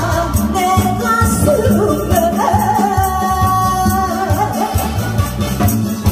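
Live singing through a PA over a loud backing track with a steady beat; the singer holds one long note in the middle.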